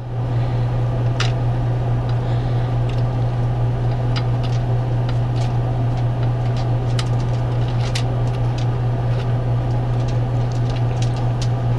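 Scattered light clicks of pennies being set down one at a time on a countertop, over a steady low machine hum.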